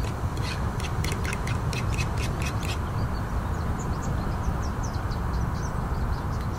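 A fork beating thick flour-and-water paste in a pan, scraping and clicking about four times a second. About three seconds in this gives way to faint sizzling and small pops as the paste lands on the frying beef and onions, over a steady low background noise.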